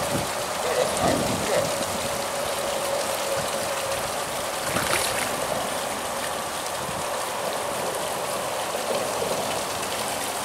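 Creek water flowing steadily, a continuous rushing wash.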